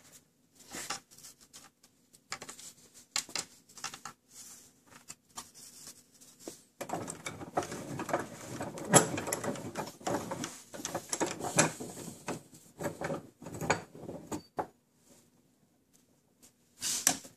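A black plastic gauge pod and a cloth being handled on a wooden workbench and set against a bench vise: irregular knocks, clicks and rustling, busiest through the middle and quieter near the end.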